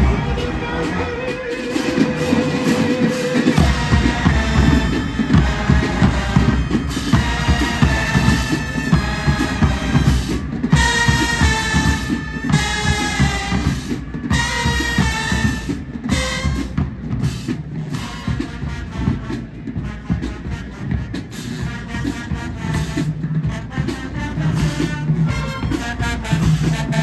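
Marching band playing: brass sustaining a note, then the drumline's bass drums come in about three and a half seconds in and drive a steady beat under the brass lines.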